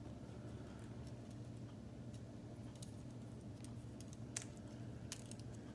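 A few light, scattered clicks of plastic K'nex rods and connectors being handled and set down, over a low steady hum.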